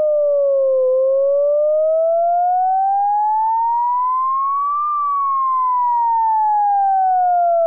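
Ambulance siren sounding its wail: a single clear tone dips low about a second in, glides slowly up for about four seconds, then falls back down over the rest.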